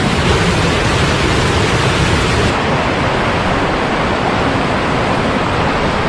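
Waterfall pouring, a loud steady rush of water with no distinct events; the highest hiss drops away about two and a half seconds in.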